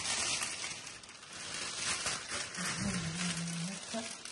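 Clear cellophane wrap crinkling and rustling as it is handled, a dense crackle of fine ticks. A short hummed voice note lasts about a second, starting a little under three seconds in.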